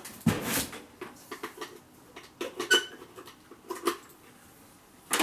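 A power adapter and its cord being handled and plugged in: a few separate plastic clicks and knocks, with a brief high squeak about two and a half seconds in.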